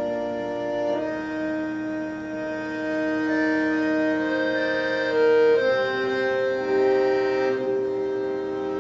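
Accordion playing slow, sustained chords, moving to a new chord every few seconds.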